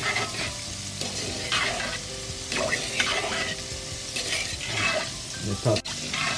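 A metal spoon stirring Spanish rice in a steel pot of cooking liquid, scraping the pot in irregular strokes roughly once a second, over a steady sizzling hiss. The loudest stroke comes just before the end.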